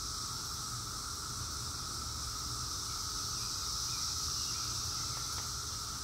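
Chorus of cicadas: a steady, unbroken high-pitched drone with a fainter, lower band beneath it.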